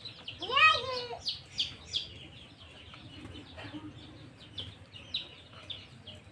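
A chicken calls once about half a second in, a drawn-out cluck that rises and then falls in pitch. Small birds chirp throughout.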